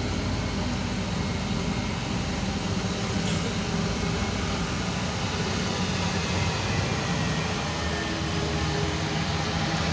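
A vehicle engine running steadily with a low hum, over a steady hiss of noise.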